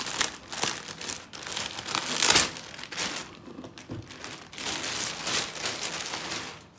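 Clear plastic bag crinkling and rustling in irregular bursts as it is pulled off a small amp head, loudest a little over two seconds in and thinning out toward the end.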